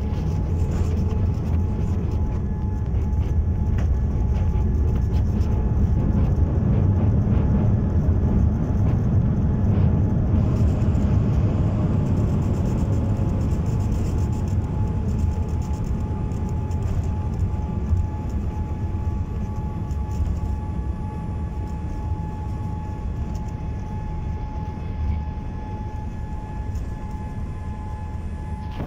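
Cabin noise of a Boeing 787-8 on its landing rollout, ground spoilers up: a deep rumble swells over the first ten seconds and then slowly fades as the jet slows. A steady thin whine runs throughout, and a fainter whine slowly falls in pitch.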